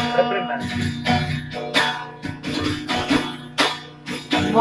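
Guitar strummed in a steady rhythm, an instrumental break between sung lines of a Batak song. The singing voice comes back in near the end.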